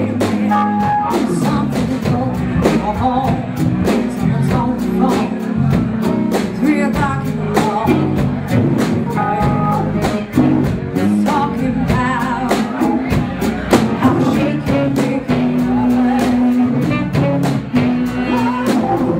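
Live soul-rock band playing an up-tempo number: steady drum beat, bass and electric guitar, with a singer.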